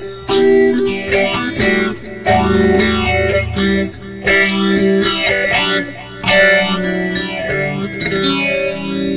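Electric guitar played through a vacuum tube PA amplifier, chords strummed with strong strokes about every two seconds, each left to ring out.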